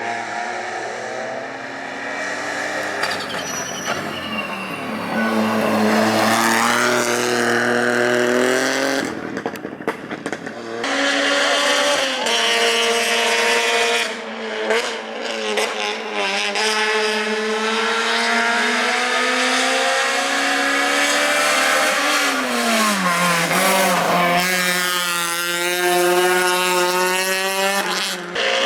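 Rally cars at full throttle, engine pitch climbing and dropping through gear changes. About ten seconds in there is a cluster of sharp cracks as the throttle lifts, and near the end a steep drop in pitch as a car brakes and downshifts.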